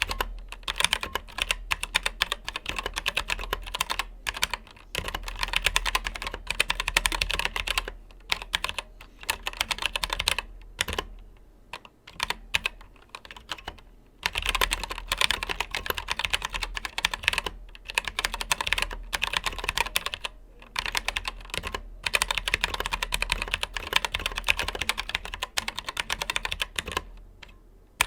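Typing on a Keychron K8 wireless mechanical keyboard fitted with brown (tactile) switches: fast runs of key clicks broken by short pauses.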